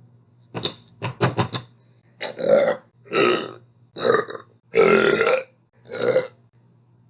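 A woman burping over and over. There is a short burp and a quick stuttering run of short ones near the start, then five drawn-out burps about a second apart.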